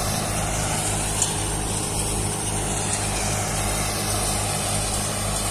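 Mahindra Arjun 555 DI tractor's four-cylinder diesel engine running steadily under load, driving an NVT multicrop thresher, with the thresher's steady mechanical whir and rush mixed in.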